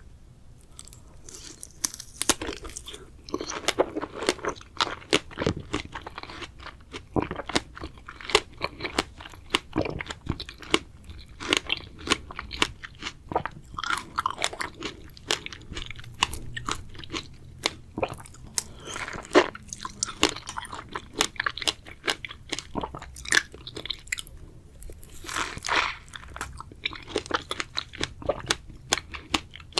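Close-miked eating of strawberries: bites and chewing, a dense, irregular run of sharp wet clicks and smacks that starts about a second in.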